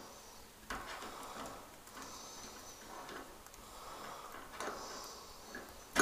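Quiet room with faint scattered clicks and light knocks, a faint high squeak twice, and a sharper knock at the very end.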